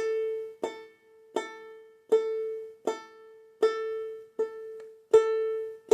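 Banjolele played clawhammer style: one open string struck with the index finger in a downstroke, the same note plucked about eight times at an even pace, each ringing briefly before the next.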